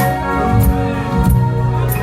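A live band playing a slow gospel song: sustained keyboard chords over bass, with regular cymbal or drum hits.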